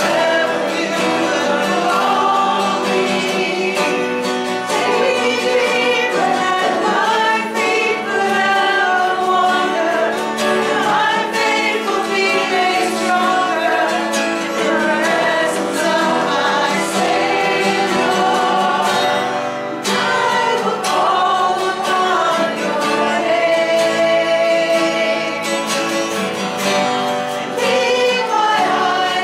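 Many voices singing a worship song together, steady and unbroken.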